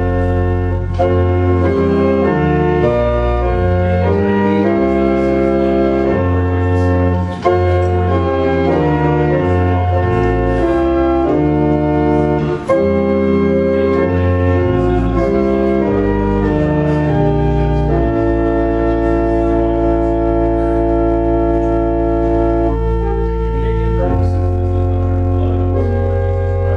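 Church organ playing slow sustained chords over a pedal bass, changing chord every second or two; one chord is held for several seconds in the later part.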